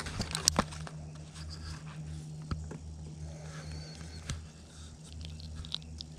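Close handling of a fishing rod and line: a quick run of sharp clicks and taps in the first second, then scattered soft clicks, over a steady low hum.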